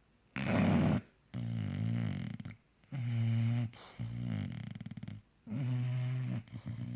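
A bulldog snoring loudly. A hissing breath comes about half a second in, then a run of buzzing, rattling snores separated by short pauses.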